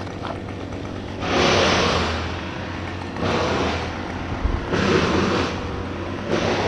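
A small engine running steadily, with four loud rushing surges of noise, each about a second long, coming every second or two.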